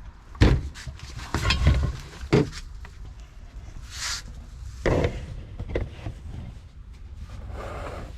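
Handling of boxed patio table parts: several knocks and thumps, the loudest about half a second in and a cluster around a second and a half, with rubbing and scraping between them and a short hiss near the middle.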